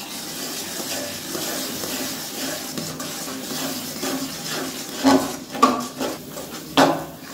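Metal spatula stirring black sesame seeds into bubbling date-palm jaggery syrup in an aluminium kadai: a steady sizzling, scraping hiss as the seeds are poured in and mixed, then a few sharp clatters of the spatula against the pan near the end.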